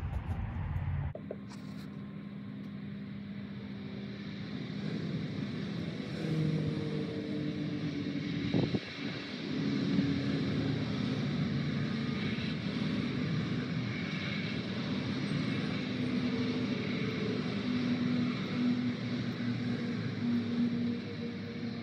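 Steady motor-vehicle noise with a low engine hum that shifts in pitch, and a single sharp knock about nine seconds in.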